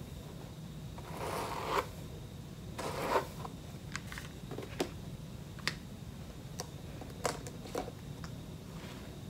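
Long straightened wig hair being worked with a flat iron and paddle brush: two swishing strokes through the hair in the first few seconds, then a scattering of light clicks and taps.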